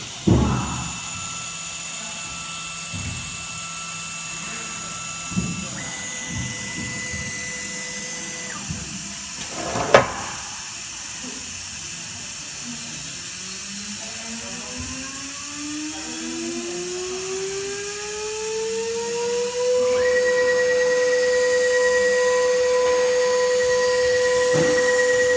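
1212 ATC CNC router's spindle motor whining. There is one sharp noise about ten seconds in. From about twelve seconds the spindle spins up with a whine rising over some eight seconds, then holds a steady high whine at speed.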